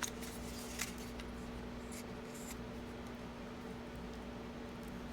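Product packaging being handled while unboxing: a few small clicks and rustles in the first two and a half seconds, then quieter handling, over a steady low hum.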